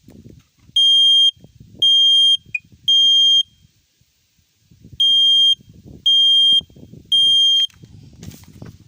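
Battery smoke alarm sounding its test signal: a loud, high-pitched beep repeated in the three-beep pattern, two rounds of three half-second beeps with a pause between them.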